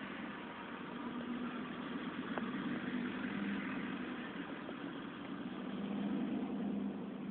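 A car's engine running with tyre and road noise, heard from inside the cabin while driving slowly; a steady hum.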